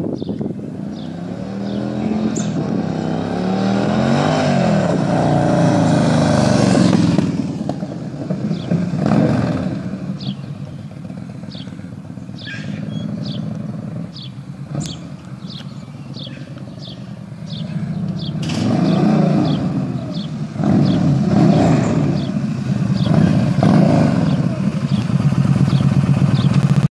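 Yamaha XVS1300 V-twin running through a modified exhaust whose internals have been partly removed inside the original casing, giving a deep, throaty note. The engine revs up and eases off several times as the bike is ridden, loudest around the first quarter and in the last third.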